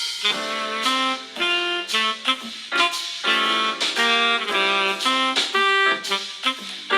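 Xiaomi POCO F2 Pro ringtone playing: a melodic tune of held, pitched notes changing about every half second, starting right at the beginning.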